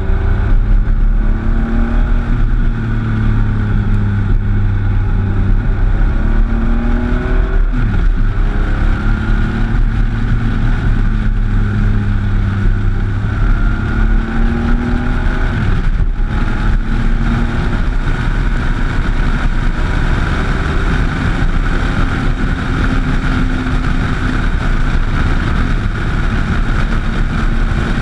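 Motorcycle engine running under load over a steady rush of wind. Its note rises, drops sharply at a gear change about eight seconds in, climbs again, and shifts once more around sixteen seconds.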